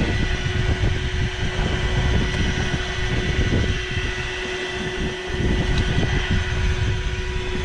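Wind buffeting the microphone in uneven low gusts, over a steady faint hum.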